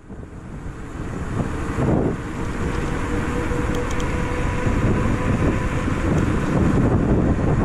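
Wind buffeting the microphone, with tyre and road noise, from a bicycle riding along an asphalt street; the rumble swells up over the first second and then stays steady.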